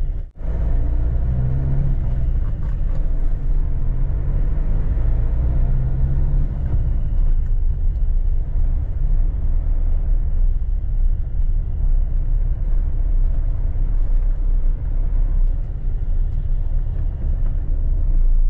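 Steady low rumble of a vehicle driving along a paved street: road and engine noise. There is a brief dropout about half a second in, where the recording cuts.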